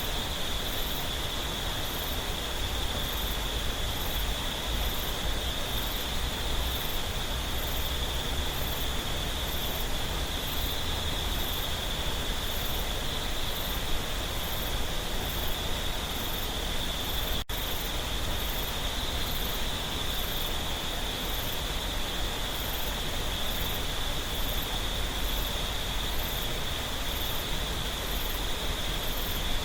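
Clear mountain stream water babbling and rushing steadily over rocks, with a steady high insect trill above it. The sound drops out for an instant about two-thirds of the way through.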